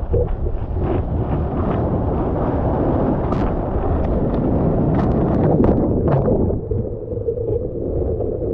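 Wind buffeting an action-camera microphone over rushing, splashing ocean water, with a run of sharp splashes between about three and six seconds in.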